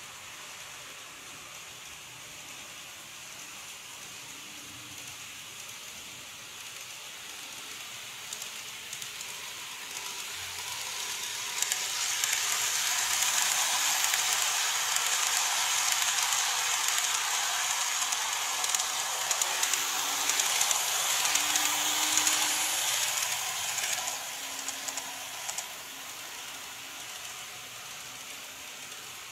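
Model train of E127-100 and 115-1000 series cars running past on its track, a steady hiss of wheels and motor. It grows louder as the train nears, stays loud while it passes close by, and fades away in the last few seconds.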